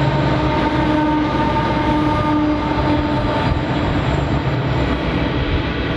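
Diesel locomotives hauling a loaded coal train pass close by with their engines droning, the engine tones fading about three seconds in as the loaded coal hopper wagons follow, rolling steadily on the rails.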